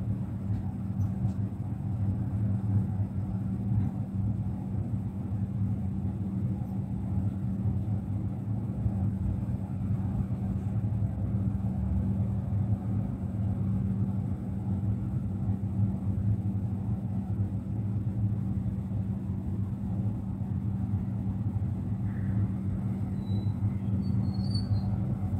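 Steady low electric hum from a Zentralbahn electric train standing at the platform with its auxiliary equipment running.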